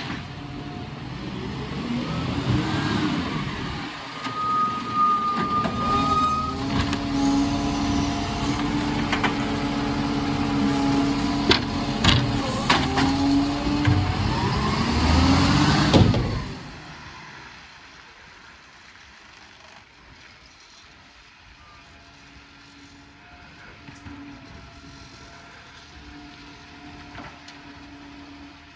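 Side-loader garbage truck emptying a wheelie bin with its automated arm: the diesel engine revs up and down to drive the hydraulics, holding a steady pitch while the arm lifts, with sharp knocks as the bin is tipped and set back down. A little past halfway the noise drops away to the faint sound of the truck's engine in the distance.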